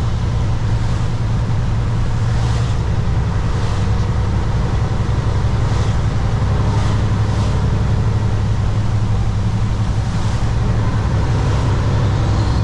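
Kenworth W900 semi truck driving: a steady low diesel engine drone with road noise.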